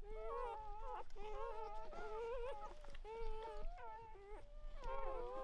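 Several newborn Weimaraner puppies crying, squealing and whining almost without pause, their thin, wavering cries overlapping.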